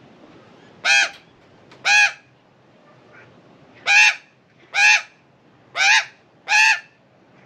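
Female Australian magpie giving six loud, strident squawks: two about a second apart, then after a pause four more in quick succession, each short and arching up then down in pitch. They are scolding calls at a cat, nest defence with her chicks close to leaving the nest, as the owner assumes.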